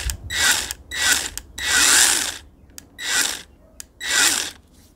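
Worx 5-inch 20V battery mini pruning chainsaw running unloaded in five short trigger bursts, the middle one the longest, each spinning up and winding down. The chain is being run briefly to spread freshly applied drops of bar oil.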